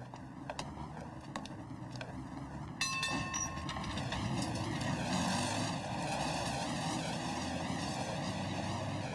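Streetcar running on its rails, with a few sharp clicks in the first three seconds. About three seconds in, a short ringing tone of several pitches sounds and the running noise grows louder and stays up.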